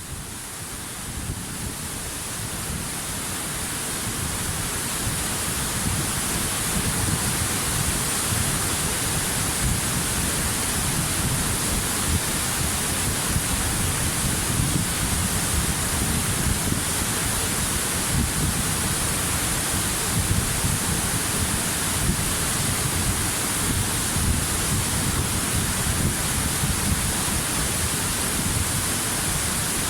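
Waterfall: a steady rush of falling water that swells in level over the first few seconds, then holds even.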